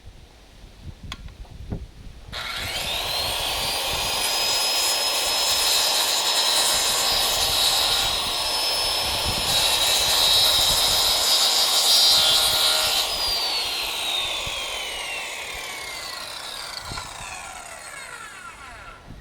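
Handheld circular saw: a few handling knocks, then the motor starts about two seconds in with a rising whine and runs at full speed while a sweeping cut is made. It is switched off about thirteen seconds in and the blade spins down with a long falling whine.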